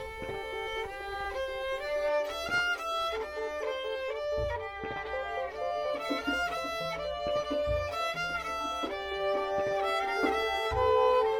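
Instrumental music: several layered melodic lines of short stepped notes in a bowed-string-like sound, with a low thump about every three seconds.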